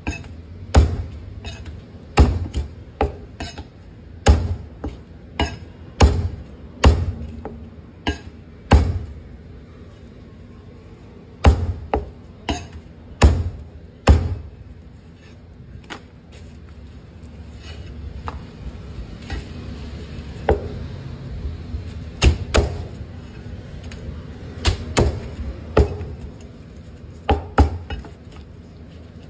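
Meat cleaver chopping roast duck and goose on a thick round wooden chopping block: sharp strikes about once a second, with a lull of several seconds in the middle before the chopping starts again.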